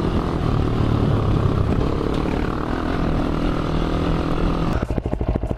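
Polaris Outlaw 450 quad's single-cylinder engine with a CRD aftermarket exhaust, running steadily at raised revs, then dropping back to a slow, pulsing idle near the end.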